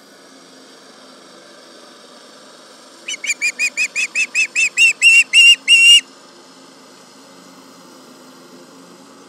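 Osprey giving a series of about a dozen shrill, whistled alarm calls that grow louder and longer over about three seconds and then stop abruptly, calling at a tractor. A faint steady engine hum lies underneath.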